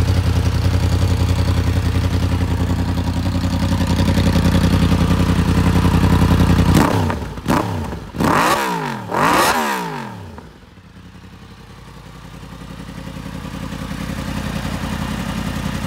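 Yamaha MT-10 SP's crossplane inline-four idling steadily through its Yoshimura Alpha exhaust. About seven seconds in it is blipped three times in quick succession, each blip revving up and falling back. It then settles to a quieter idle.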